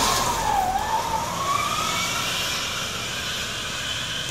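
Heavy box truck driving off along the road, with a high whine that dips briefly and then climbs steadily in pitch as it pulls away, over tyre and road noise.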